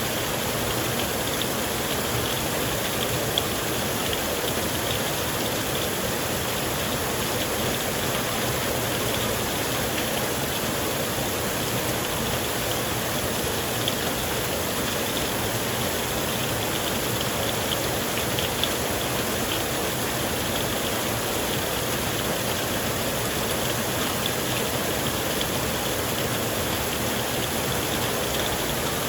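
Torrential rain pouring steadily: a dense, even hiss with faint patter of drops.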